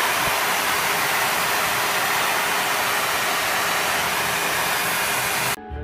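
Hair dryer blowing, a loud, steady rush of air that stops abruptly near the end.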